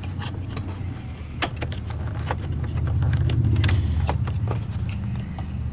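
Electric motor of a Wessel-Werk EBK 360 power brush running with a steady low hum, getting louder about three to four seconds in, while the nozzle is tested. Scattered sharp clicks and taps from the parts being handled run over it.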